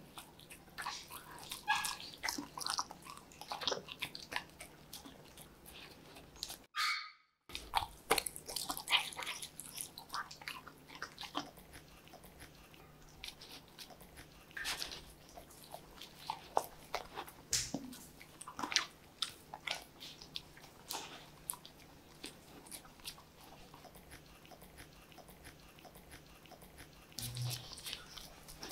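Dachshund eating off a slate board: irregular wet chewing and crunching of chicken, tofu, carrot and broccoli, with quick sharp clicks of bites. The sound drops out briefly about a quarter of the way in.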